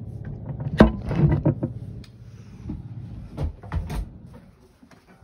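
Handling noise from setting up to record: a sharp knock about a second in, a stretch of rustling and bumping, then a few dull thumps as the phone is positioned and the acoustic guitar is brought into place.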